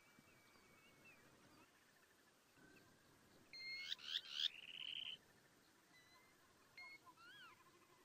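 Birds calling in the background, with one louder burst of song about halfway through: a few quick sweeping high notes ending in a fast trill, over faint scattered chirps.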